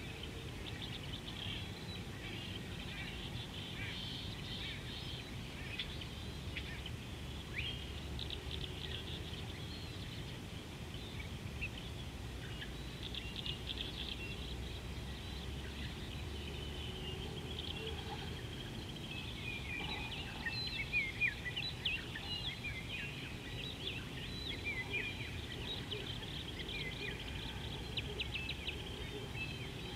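Many small birds chirping and calling together, with quick sharp chirps thickest in the second half, over a steady low rumble.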